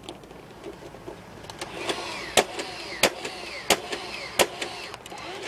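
Battery-powered Nerf Swarmfire blaster firing: a motor whine that rises and falls in pitch, with four sharp snaps about two-thirds of a second apart from about two seconds in.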